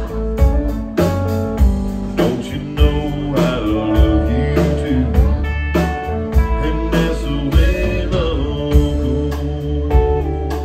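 Live country band playing an instrumental passage: a drum kit keeping a steady beat under electric bass, guitar and fiddle.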